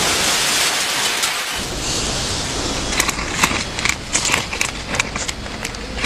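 Sound effects of a car hitting a pedestrian: a rushing burst of noise that fades over about two seconds, then a run of sharp clicks and crackles.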